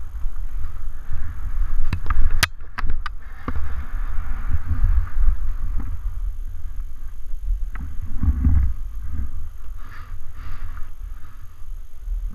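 Wind buffeting the microphone of a skier's action camera, with skis hissing and scraping over snow on a downhill run that swells and fades with the turns. A few sharp clicks come about two to three seconds in.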